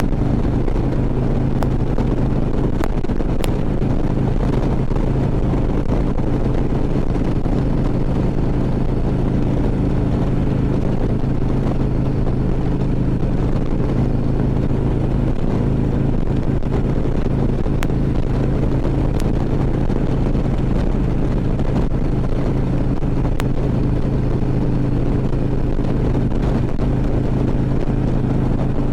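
Harley-Davidson V-twin engine running at a steady cruise, its low tone holding constant pitch throughout, mixed with wind and road rush.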